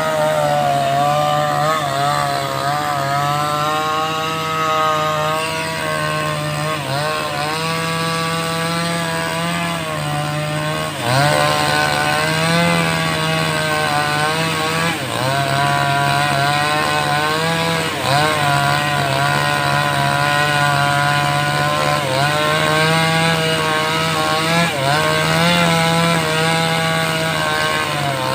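A 5800-type two-stroke chainsaw with a 22-inch bar running under load while ripping lengthwise through a teak log. The engine runs steadily and its note dips briefly several times as the chain bites, then recovers.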